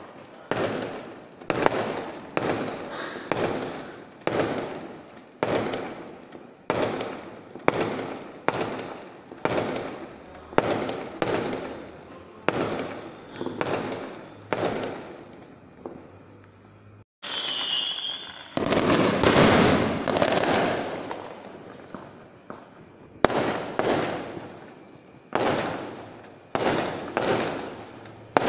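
Aerial fireworks going off in a rapid series of sharp bangs, about three every two seconds, each trailing off in a short echo. Past the middle the bangs pause; a short whistle and a longer rushing swell follow, then the bangs start again.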